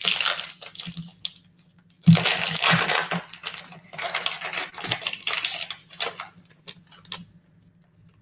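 Foil wrapper of an Illusions football card pack crinkling and crackling as it is handled and opened, with trading cards sliding against each other. It comes in three bursts of rustling, followed by a few light clicks.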